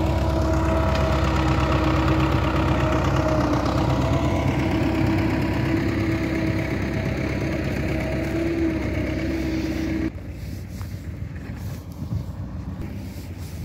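Diesel engine of a wheeled tractor-backhoe loader running steadily with a droning hum. It cuts off abruptly about ten seconds in, leaving quieter open-air background noise with a few light clicks.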